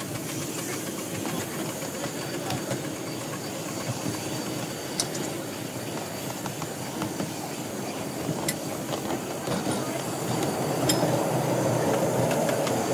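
Miniature steam locomotive running along the track: a steady rush of steam and running gear, with a few sharp clicks as the wheels cross rail joints and points, growing louder about ten seconds in.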